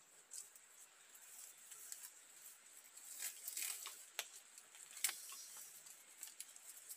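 Rustling and crackling of a palm frond's leaves as it is handled and fastened to a pole, with a few sharp snaps, the loudest about five seconds in.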